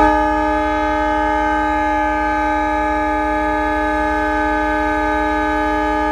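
Horn of a Pakistan Railways GMCU-15 diesel-electric locomotive, No. 4910, sounding one long, steady blast: the initial departure whistle, signalling that the train is about to leave.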